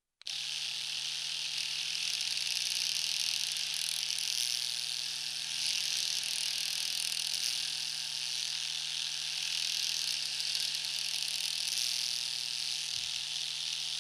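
Electric razor running: a steady low motor hum under a strong high hiss from the cutting head. It starts abruptly and cuts off suddenly near the end.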